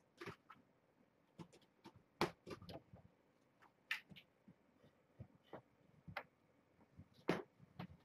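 Faint, irregular clicks and soft knocks of kittens scampering about on a towel-covered floor. The two loudest knocks come about two seconds in and near the end.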